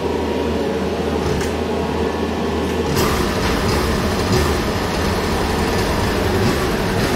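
Polaris Axys 800 two-stroke twin snowmobile engine on its stock exhaust, running steadily to warm up before a dyno pull; it grows a little fuller and louder about three seconds in.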